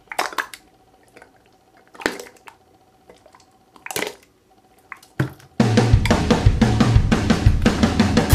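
Glitter slime squelching and popping as a hand squeezes it out of a cup, a few short wet squishes a second or two apart. Background music with a steady beat comes in about two-thirds of the way through.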